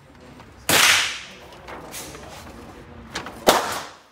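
Two gunshots echoing in an indoor shooting range, about three seconds apart, each with a long reverberant tail, and a couple of smaller clicks just before the second shot.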